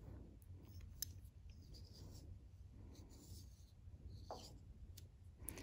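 Very faint rubbing of yarn on metal knitting needles as knit stitches are worked, with a light click about a second in, over a low steady room hum.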